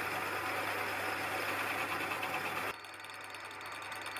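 Metal lathe taking a roughing cut in mild steel bar: a steady noisy cutting sound over the hum of the lathe running. About two-thirds of the way through the cutting sound stops abruptly, leaving the lathe's hum.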